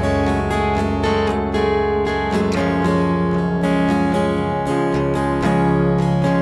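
Instrumental music: a rapidly picked, strummed guitar over sustained low bass notes.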